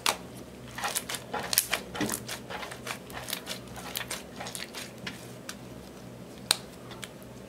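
Clear slime tinted gold with mixed-in eyeshadow being stretched, squeezed and folded by hand. It gives sharp clicks and pops of trapped air, thick over the first three seconds and then sparser, with one loud pop near the end.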